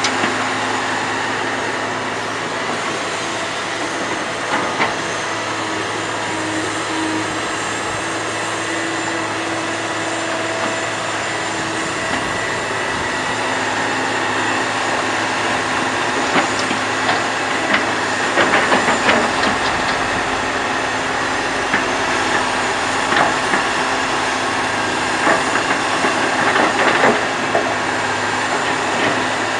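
Komatsu PC200 hydraulic excavator's diesel engine running steadily under load while it works, with frequent clanks and knocks from the bucket digging and dumping soil, more of them in the second half.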